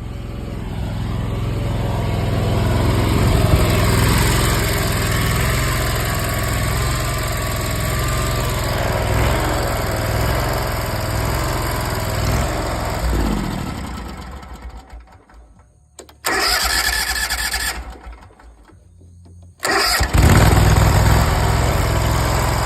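Zero-turn mower engine running steadily now that its fouled spark plugs and clogged air filter have been replaced, curing its crank-no-start. It dies away about two-thirds of the way through, a short burst of hiss follows, and it is running again near the end.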